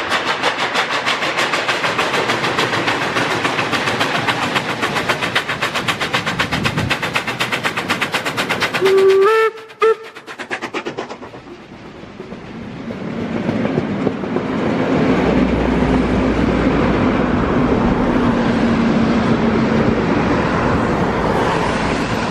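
Steam locomotive working toward the listener, its exhaust chuffing in quick, even beats. About nine seconds in it gives a short whistle blast and a brief second toot as it passes underneath. Then its coaches roll by with a steady rumble.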